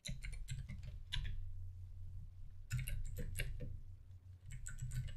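Computer keyboard keys being typed, irregular clicks in quick clusters, over a low steady hum.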